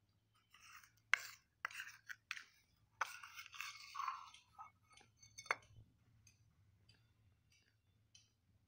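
Steel spoon scraping and clinking against a steel bowl as it stirs and scoops a wet slate-pencil paste: a run of scrapes and sharp clinks in the first five or so seconds, loudest about a second in and again about five and a half seconds in.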